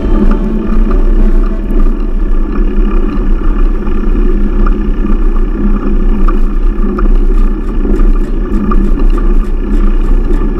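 A vehicle driving at steady speed: constant engine and road rumble.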